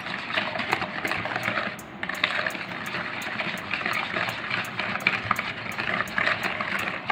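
Cake batter of creamed butter, sugar and egg being beaten by hand in a mixing bowl, the utensil scraping and clicking against the bowl in quick, continuous strokes, with a brief pause about two seconds in.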